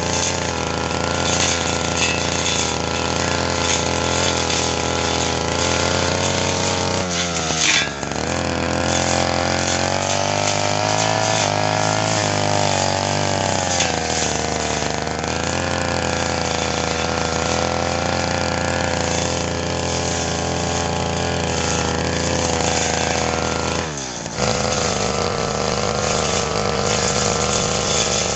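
Brush cutter engine running at high speed while cutting fern grass. The engine speed dips briefly and picks up again about a quarter of the way in, and again near the end.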